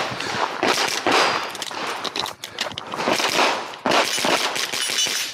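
A .22LR rifle fired in quick strings of sharp shots, each with a short echo.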